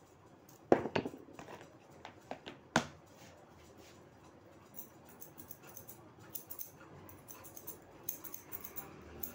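Several sharp knocks and taps in the first three seconds, then a run of quick, light, high clicks: a barber's scissors snipping hair.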